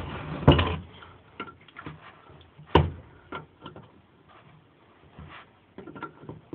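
Metal clinks and knocks of a small crescent wrench and bolts on an air compressor's cylinder head as it is fitted: two sharp knocks, about half a second in and just before three seconds, then scattered light clicks.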